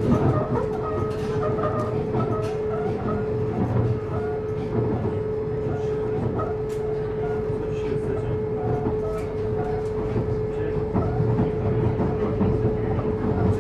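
CAF Civia commuter electric train running, with a steady, unchanging tone from its Siemens traction converter over the rumble of the wheels on the track and scattered short clicks from the rails.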